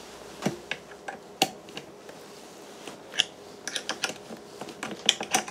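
Scattered light metallic clicks and taps of a 5 mm Allen key and a 10 mm wrench on thread-locked bolts as they are worked loose, irregularly spaced with a small cluster near the end.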